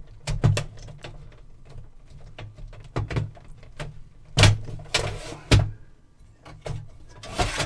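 Sharp metal clicks, knocks and short scrapes as a 5.25-inch floppy drive is worked loose inside a sheet-metal SCSI drive enclosure, over a low steady hum.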